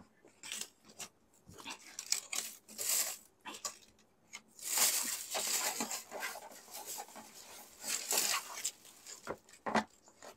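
Paper takeout packaging being handled: irregular rustling and crinkling of a paper receipt and cardboard food boxes, with a longer, louder rustle about halfway through.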